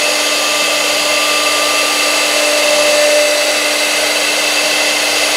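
A CNC router's 6 kW air-cooled spindle running at speed and routing a slot through a wood board: a steady high whine of several tones over a constant hiss. It stays even, with no pauses or changes in speed.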